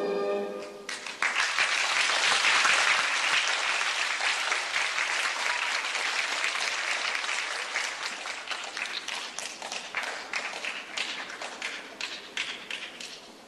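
The last held chord of the ballet music stops about a second in, and an audience breaks into loud applause. The clapping slowly fades, thinning to scattered separate claps near the end.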